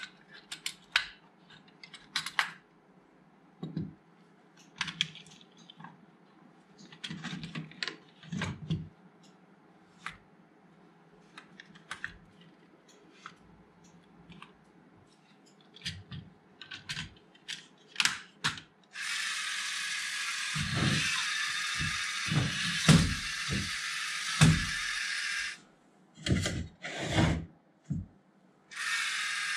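Hard plastic LEGO Technic beams, pins and wheels clicking and snapping together as a rover is built by hand, many separate clicks. About two-thirds of the way through a steady hissing whir starts and stops with sharp edges, with several heavy knocks of wooden boards set down on a wooden table, and it starts again near the end.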